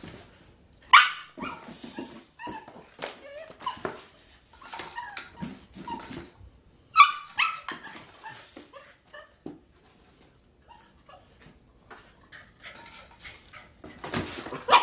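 A high-drive puppy yipping and barking in short, separate bursts, with whimpers between them, as it scrabbles among cardboard boxes and toys in a wire exercise pen. The two loudest yips come about a second in and about seven seconds in.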